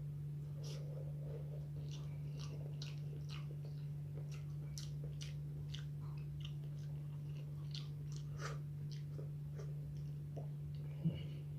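A person chewing food close to the microphone, with many small wet mouth clicks scattered irregularly and one sharper click near the end, over a steady low hum.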